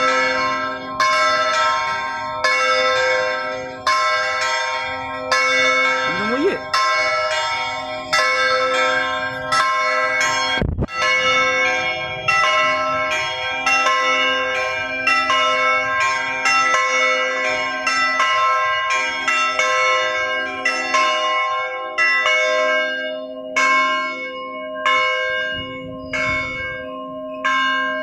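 Church bells ringing in a steady peal, strokes coming about once a second and each left ringing into the next. The sound drops out for an instant about ten seconds in.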